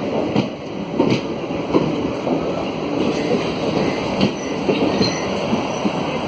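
Blue Indian Railways passenger coaches rolling into a station: a steady rumble of wheels on rail with regular clacks, about one and a half a second, as the wheels cross the rail joints.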